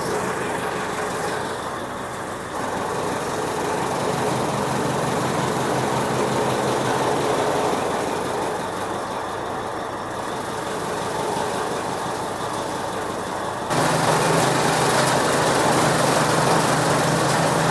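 Chaff cutter machine running steadily, its blades and drive making a continuous mechanical noise. About 14 s in, the sound jumps suddenly louder and a steady low hum appears.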